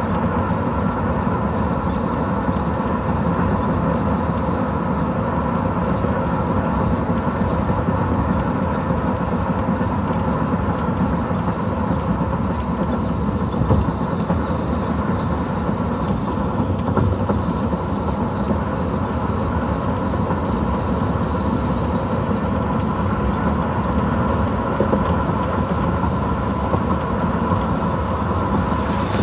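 Steady road and wind noise of a car travelling at highway speed, an even rumble that holds unchanged throughout.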